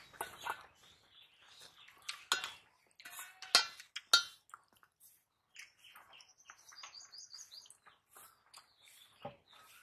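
Stainless steel plates clinking and scraping as rice is mixed and eaten by hand, with a few sharp clinks in the first half. A bird chirps a quick run of high notes past the middle.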